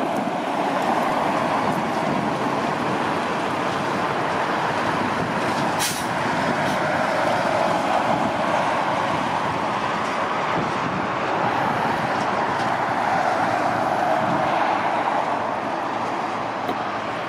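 Heavy truck running close by: a steady, even noise that does not rise or fall, with one short click about six seconds in.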